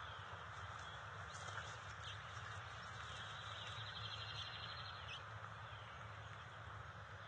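Faint outdoor ambience with wild songbirds: a few short high chirps and a rapid high trill lasting nearly two seconds from about three seconds in, over a steady low hum.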